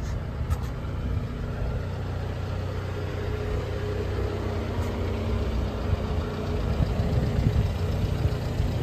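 Subaru Sambar kei truck's rear-mounted 660 cc four-cylinder engine idling steadily, getting a little louder toward the end as the rear of the truck is approached.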